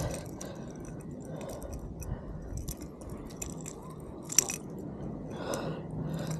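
Small irregular clicks and scrapes as a hard plastic popper lure and its hooks are worked free of a caught fish's mouth by hand, with one sharper click about four seconds in.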